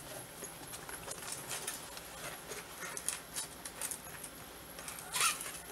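Hands handling a fabric fly-rod case: light rustling and small scattered clicks, with one louder scrape about five seconds in.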